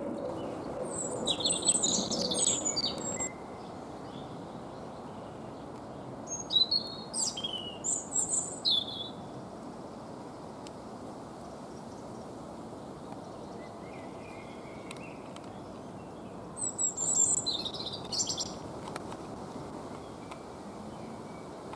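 A songbird singing three short phrases of quick, high notes, several seconds apart, over a steady low background rumble.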